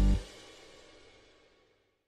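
Background music with held keyboard-like tones cutting off just after the start, its last notes dying away within about a second, then silence.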